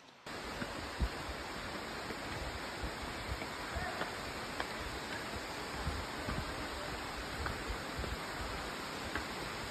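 Steady rush of running water, starting suddenly just after the beginning, with low wind buffeting on the microphone and a sharp knock about a second in.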